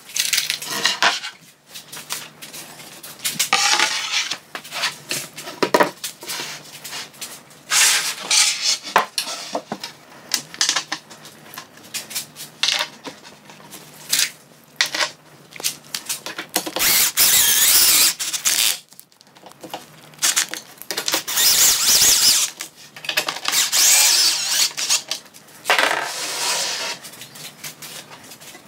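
Laminated chipboard cabinet panels being handled and fitted together on a wooden workbench: repeated knocks and clatter of board against board and bench, with stretches of scraping and rubbing as panels slide into place.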